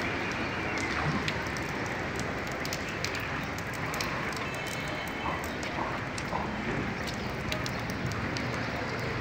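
Steady hiss of rain and water over a flooded street, with scattered sharp ticks like drops striking hard surfaces.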